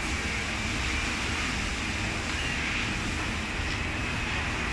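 Sandpaper rubbed by hand over the surface of a white basin to sand off a laser-marked logo, heard against a steady background hum and hiss.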